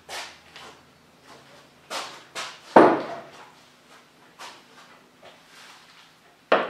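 Heavy metal woodturning scroll chucks being handled, picked up and set down on a lathe bed: a string of knocks and clunks, the loudest about three seconds in and another just before the end.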